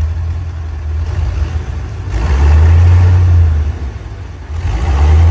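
MAN KAT1 military truck's diesel engine running with a deep rumble through its exhaust mufflers, swelling louder twice, about two seconds in and again near the end.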